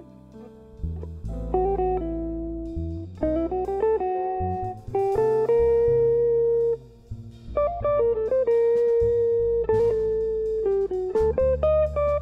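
Jazz quartet playing a slow tune: hollow-body electric guitar carries the melody, with runs of notes and a few long held notes, over piano, upright bass and light drums.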